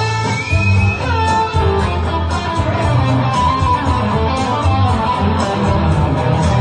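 Electric guitar lead played live through an amplifier, with notes bent upward in pitch near the start, over a steady bass line and a regular beat.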